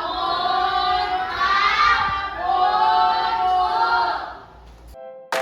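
A class of primary-school children chanting their thanks to the teacher together, with slow, drawn-out syllables in unison. The chant fades out about four and a half seconds in, and a piano note strikes just at the end.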